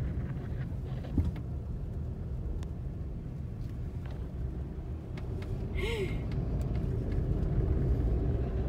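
Steady road and engine rumble of a moving car heard from inside the cabin while driving, with a sharp click about a second in and a short rising-and-falling tone near six seconds.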